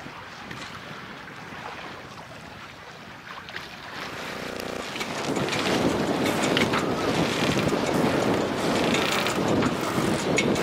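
Wind buffeting the microphone, light at first, then rising into a strong gust about five seconds in that stays loud and rough.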